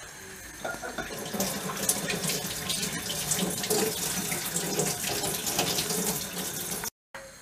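Meat broth boiling in an enamel pot on a gas stove: a steady bubbling of many small pops that rises in about a second in, and breaks off abruptly near the end.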